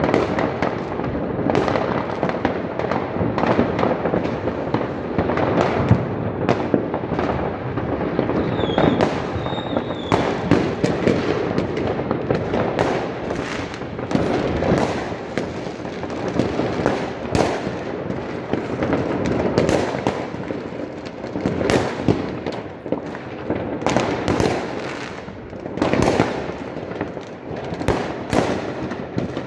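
New Year's Eve fireworks going off all over a city: a constant din of overlapping bangs and crackling from many rockets and firecrackers at once, with sharper nearby reports standing out. A brief high whistle sounds about nine seconds in.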